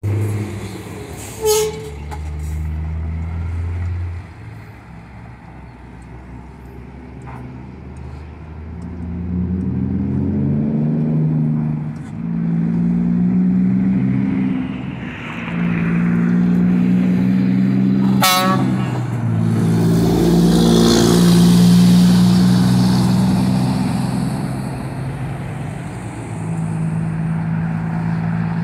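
Scania truck with an aftermarket exhaust diffuser pulling away and accelerating. Its engine note climbs and drops back several times as it goes up through the gears, loudest as it passes. Two short sharp bursts cut in, one near the start and one about two-thirds of the way through.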